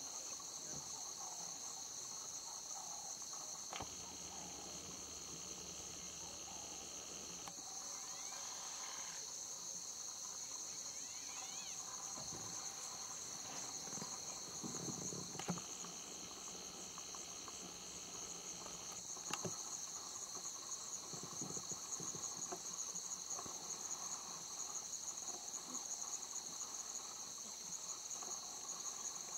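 Steady, high-pitched chorus of insects in the bush, with a few faint soft knocks.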